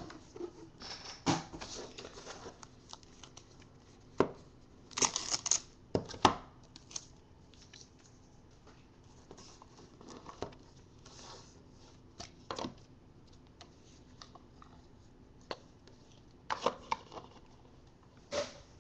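Hands handling a sports trading card box and its packaging: scattered short rustles, tears and clicks, busiest about four to six seconds in and again near the end.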